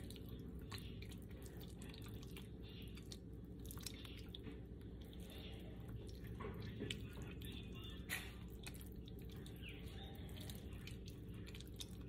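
Faint, scattered wet squishing and dripping sounds of hands rubbing butter into raw chicken breasts, over a low steady hum.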